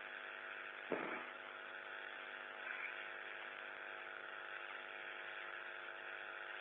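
Steady hum and hiss of an open space-to-ground radio loop, with one click about a second in.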